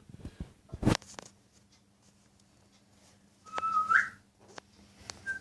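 A sharp knock about a second in, then a short whistled note a few seconds in that holds steady and rises at its end, with a few faint clicks.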